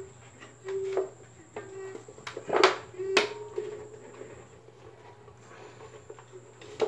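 A rubber band being stretched and wound tight around a bicycle frame to hold on a plastic PET bottle: short squeaks several times in the first three seconds, with sharp plastic clicks and taps about two and a half and three seconds in.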